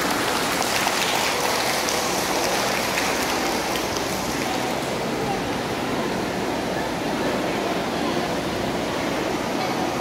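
Steady, even noise of a crowded hall, with indistinct voices mixed in.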